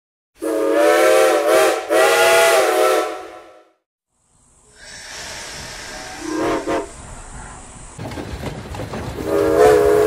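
Vintage steam whistle sounded in two long blasts, a chord of several tones that fades out. After a short gap, a steady steam hiss with a brief whistle toot, and near the end another train whistle chord begins.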